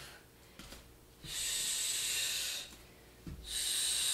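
A woman breathing hard through her mouth while exercising: two long, forceful breaths about two seconds apart. A faint soft thump comes just before the second.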